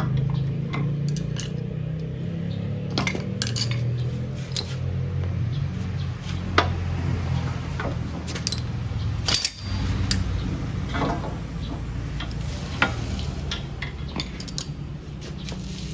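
Hand tools and steel parts clinking and clanking irregularly, with a sharp knock now and then, over a steady low hum, as a front wheel hub and bearing are put back together.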